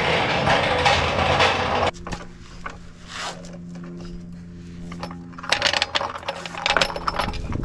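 Daytona floor jack rolling across a concrete garage floor with a loud, steady rumble that stops abruptly about two seconds in. Near the end come sharp clicks and metal rattles as the jack is set under the car's jacking point.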